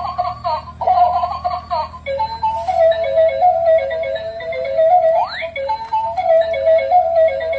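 Light-up crawling baby doll toy's sound chip: a short recorded baby-voice babble for about two seconds, then a tinny electronic tune with a quick rising whoop about five seconds in.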